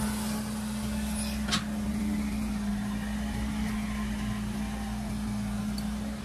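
Caterpillar tracked excavator running steadily while it digs, a constant engine drone with a steady low hum. One short sharp knock about a second and a half in.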